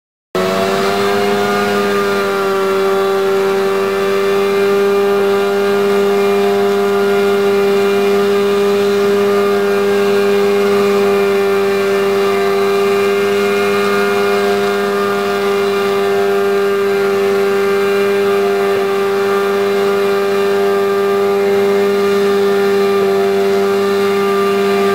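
Martin Jetpack's two-stroke V4 engine and twin ducted fans running steadily at hover power: a loud, even, pitched drone that cuts in suddenly just after the start.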